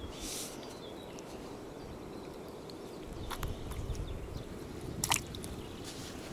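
Close handling noises as a crucian carp is unhooked by hand: a few soft clicks and rustles over a quiet background, with a low rumble coming in about halfway.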